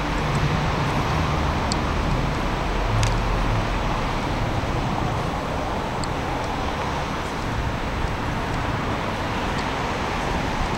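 Steady outdoor city background noise: a low rumble of road traffic under a constant hiss, with a low hum in the first few seconds and a few faint ticks.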